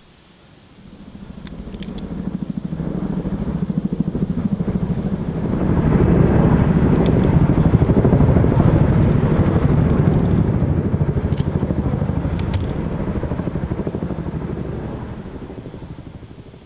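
A helicopter flying past overhead. Its rapid rotor beat grows louder over several seconds, peaks around the middle, and fades away near the end.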